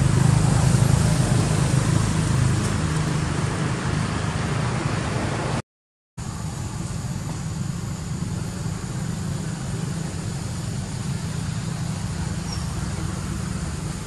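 Steady low rumble like a running vehicle engine or traffic, broken by a half-second of silence about six seconds in, then continuing a little quieter with a faint high steady tone above it.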